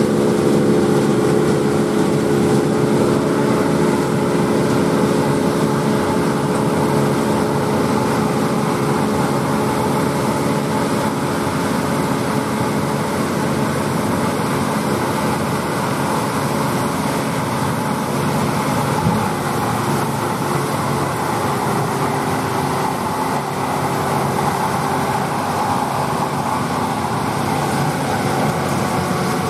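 John Deere 8R tractors' diesel engines running steadily under load as they pull KMC six-row peanut pickers, mixed with the pickers' threshing machinery. The engine tone is clearest in the first few seconds, and there is one small knock about two-thirds of the way through.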